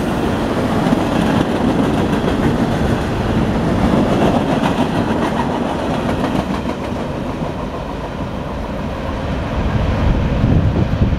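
Tail end of a mixed freight train rolling past: the steel wheels of the last freight cars running on the rails in a steady rumble that thins out as the final car goes by.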